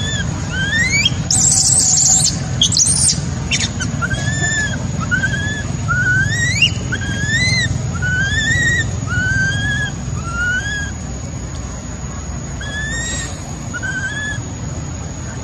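Newborn macaque crying: a long run of high, rising coo calls, about one a second, with a harsher squeal about a second and a half in.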